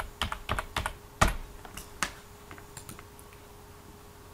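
Computer keyboard typing: a quick run of keystrokes, the loudest about a second in, then a couple of fainter clicks, stopping about two seconds in.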